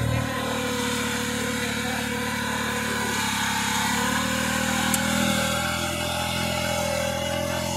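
Riding rice transplanter's small engine running hard as the four-wheel machine tries to drive itself out of deep paddy mud where it was stuck; its pitch rises slightly about halfway through.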